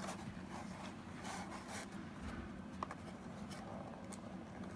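Faint scratching and small clicks of hands working at packing tape on a cardboard game box.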